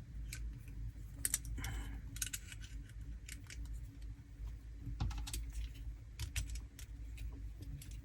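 Irregular light clicks and taps of small plastic and metal laptop parts being handled and pried at, as pieces are worked off a disassembled laptop screen assembly.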